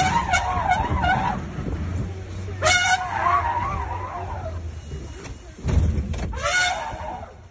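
Three long, shrill, wavering cries, one at the start, one about two and a half seconds in and one near the end, over the low running of the open safari jeep's engine.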